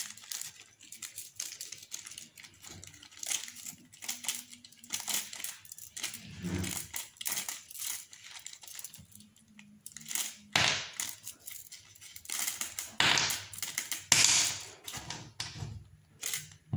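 A small plastic ziplock bag crinkling while small metal hardware parts (screws and clamps) click and clink together as they are handled, in irregular scattered clicks and rustles.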